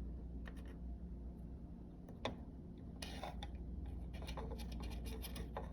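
Hands handling small hard parts: a sharp click about two seconds in, then scratching with quick small clicks over a low steady hum.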